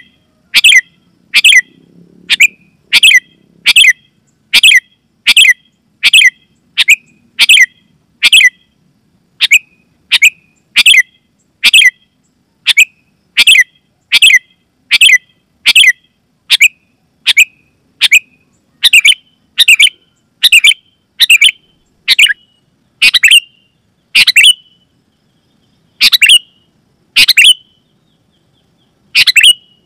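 Sooty-headed bulbul (kutilang) repeating a loud, sharp call note about one and a half times a second, the calls spacing out a little and pausing briefly a few seconds before the end.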